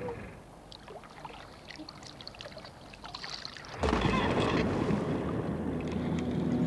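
Light water noise with scattered small clicks, then about four seconds in a sudden loud splash as a diver plunges into the sea, giving way to a steady rush of water.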